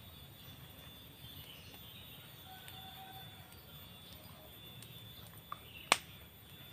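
Quiet outdoor ambience with a steady faint high tone and a few brief, faint bird-like chirps. A small click comes about five and a half seconds in, then a single sharp click just after it.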